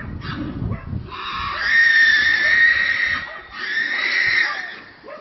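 Two long, high-pitched animal cries, each a second or two long: the first starts about a second in and the second comes near the end.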